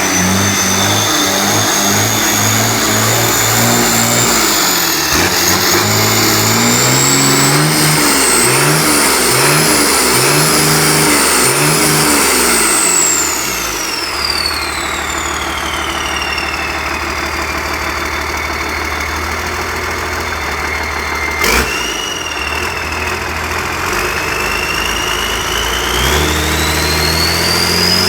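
Cummins B6T six-cylinder turbodiesel engine revved up with several quick throttle blips, its turbocharger whining higher as it spools up. It drops back to idle with the turbo whine falling away, then revs up again near the end. A single sharp knock sounds during the idle.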